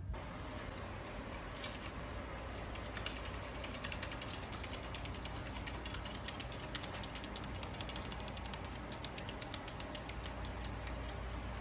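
A fast run of small clicks, like a ratchet, over a low steady hum. The clicks thicken to several a second from about three seconds in.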